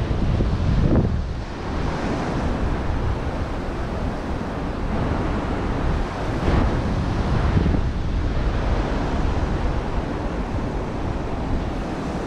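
Surf breaking and washing up a sandy beach, with strong wind rumbling on the microphone. The noise swells a few times.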